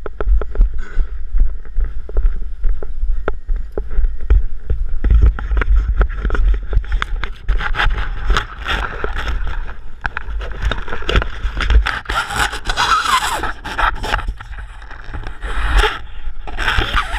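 Wind rushing over a paraglider pilot's head-mounted camera microphone as the pilot comes in low over gravel, with a dense run of knocks and crunches. A louder hissing gust swells about twelve seconds in.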